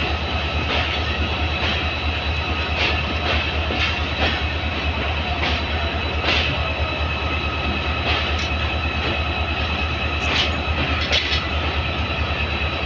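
Korean-built diesel-electric locomotive's engine running close by: a steady low rumble with a constant high whine over it, broken by sharp clicks every second or two.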